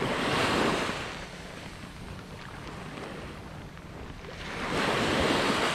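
Sea waves breaking and washing up a sandy beach: two surges of surf about four seconds apart, each swelling and fading over about a second, over a steady hiss of wind.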